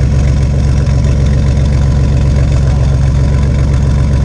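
Crudely turbocharged GM 4.3-litre V6 truck engine idling steadily and loudly, with an even low pulsing beat.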